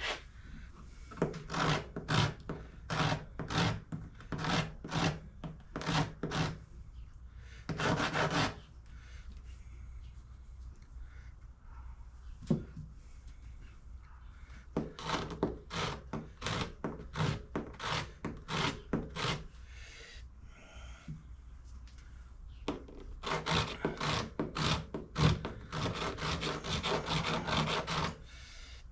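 Sandpaper on a small hand sanding block rubbing back and forth over 1940 Packard brake wheel cylinder pistons, about two strokes a second, in several spells with pauses between. It is taking deposits off so the pistons slide smoothly in the bore.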